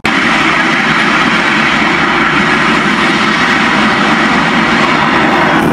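A loud, steady roar from a tall jet of flame at a burning petrol station.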